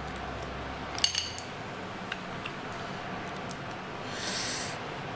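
Empty mussel shells clinking against a steel pan as cooked mussels are shelled by hand: one sharp, ringing clink about a second in, a few light ticks after it, and a short rustle of shells near the end.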